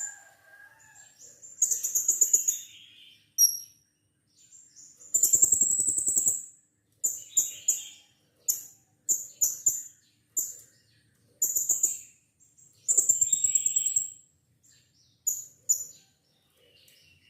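Blue-crowned hanging parrot (serindit) calling: a series of shrill, very high chirps, several of them stretched into buzzy trills of about a second, with short pauses between calls.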